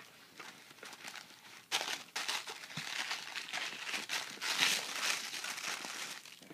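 Packaging crinkling and rustling as a cardboard doll-clothes box is opened and its contents are pulled out. It starts quietly, then a sharp rustle about a second and a half in gives way to a few seconds of dense crackling that fades near the end.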